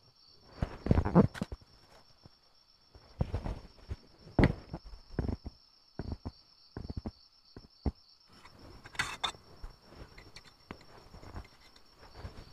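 Crickets chirring steadily, with a string of close knocks, clatters and rustles from small camping gear being handled, the loudest about a second in.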